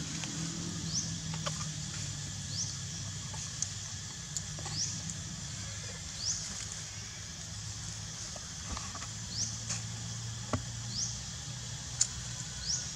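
Outdoor ambience: a high, short rising chirp repeats every second or two over a low steady hum, with scattered faint clicks.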